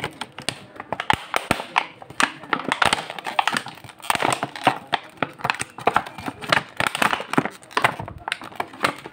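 Clear plastic packaging bags crinkling and rustling as they are handled and pulled open, an irregular run of sharp crackles.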